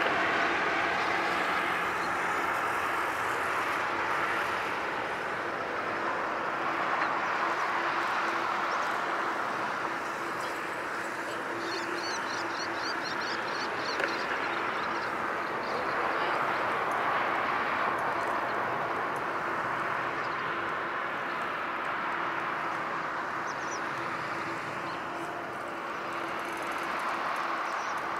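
Twin-engine jet airliner climbing away after takeoff, its engines a distant roar that drops over the first few seconds and then holds steady.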